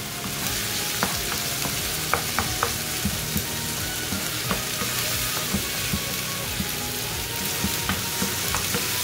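Chopped onion and tomato sizzling in oil in a nonstick pan while a wooden spatula stirs and mashes the softened tomatoes, with a steady sizzle and scattered light scrapes and taps of the spatula on the pan.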